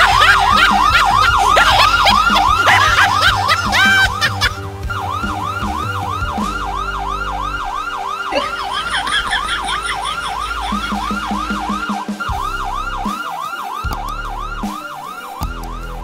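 Fake police siren from a portable speaker, a fast electronic yelp warbling about three times a second. It drops in loudness about four seconds in, with background music under it.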